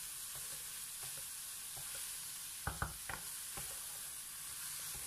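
Chicken strips and sliced onion sizzling in a nonstick frying pan as a wooden spatula stirs them. A few short knocks of the spatula against the pan come about halfway through.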